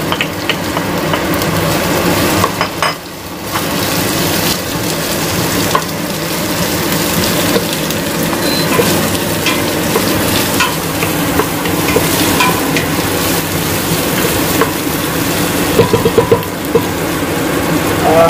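Garlic, onion and ginger sizzling in hot oil in a pan as they are sautéed, with a steady frying hiss and scattered clicks of the stirring utensil against the pan. The sizzle dips briefly about three seconds in.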